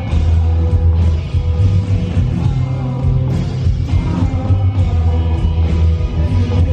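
Live rock band playing: electric guitar over a heavy, steady bass, loud and continuous as heard from the audience in a concert hall.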